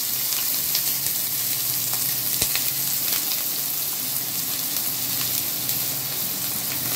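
Chopped onions and curry leaves sizzling in hot oil in a kadai, just added for tempering. The hiss is steady, with a few faint clicks.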